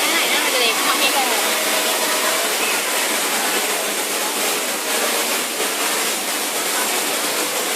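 Welding arc running continuously with a steady hiss and fine crackle. Faint voices underneath near the start.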